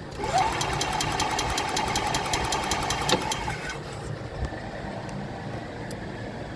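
Golf cart starter cranking the gas engine for about three and a half seconds, a whine that rises at the start over a rapid even ticking, then cutting off; the engine does not fire, as it has no spark and no fuel.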